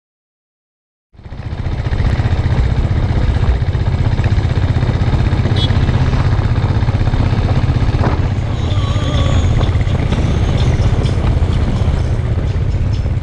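A motorcycle riding along a road, heard from an on-board camera: steady engine and wind noise with a heavy low rumble, starting suddenly about a second in.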